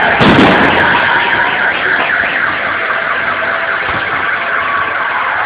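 Fireworks display: a boom right at the start, then a dense, steady crackle of bursting stars that slowly fades.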